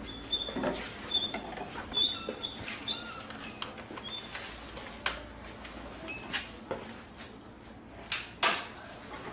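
Hand-tool work on the hoses and fittings of a diesel car engine with the engine off: scattered metallic clicks and knocks with short high squeaks during the first few seconds, and a few louder knocks about five seconds in and again near the end.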